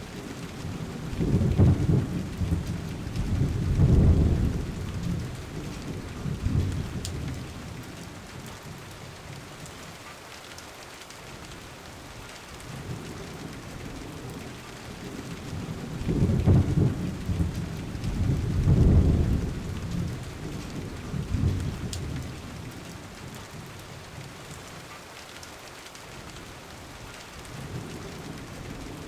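Steady rain with two long rolls of thunder rumbling low, one near the start and one about halfway through, each swelling twice before dying away.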